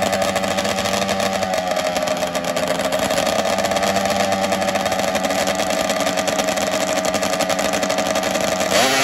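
Drag-race snowmobile engines running steadily at the start line, the pitch wavering slightly. Near the end the sleds launch and the engines rev sharply, the pitch climbing fast.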